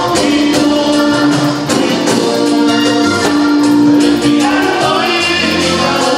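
Live band performing a vallenato song, with a man singing into a microphone over bass guitar and hand percussion.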